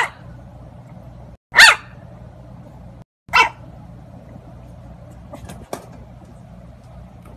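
A bulldog puppy gives three short, high yapping barks, spaced about a second and a half to two seconds apart. A few faint clicks follow.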